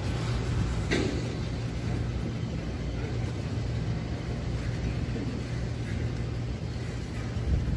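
Herzog rail-train flatcars loaded with long strings of new welded rail rolling slowly past, a steady low rumble of wheels on the rails, with one sharp clank about a second in.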